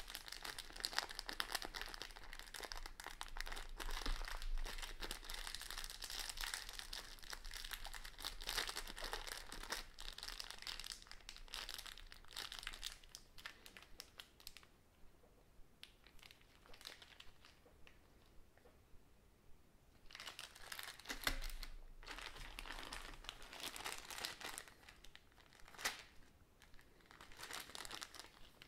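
Small clear plastic Tamiya parts bags of chassis hardware crinkling as they are handled and turned over in the hands. The crinkling comes in two long bouts with a quieter lull of several seconds in the middle.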